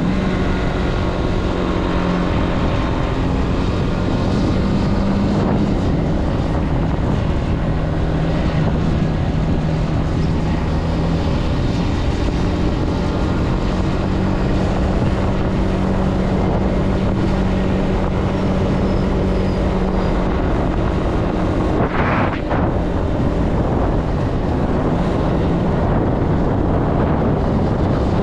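Zontes C125's 125cc single-cylinder engine running at steady cruising revs while riding, its pitch rising and dropping slightly a few times, over wind noise on the microphone. A brief rush of noise passes about three-quarters of the way through.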